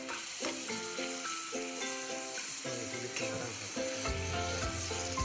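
Chopped chayote sizzling in a hot pan, stirred with a spatula as grated raw cane sugar is spooned in. Background music plays along, and a bass line comes in about four seconds in.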